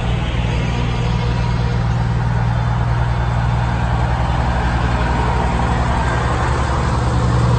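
Heavy diesel trucks rumbling past in a slow convoy, led by a Kenworth heavy tow truck. The engine note is steady and low and grows a little louder near the end as the lead truck comes close.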